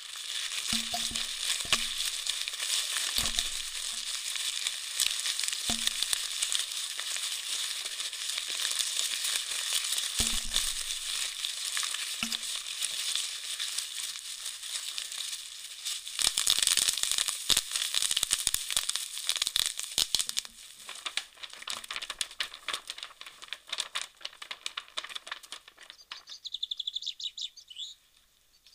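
Dense crackling, crinkling noise with a few soft low thuds in the first half, loudest for a few seconds past the middle and then thinning to scattered crackles. Near the end, repeated bird chirps.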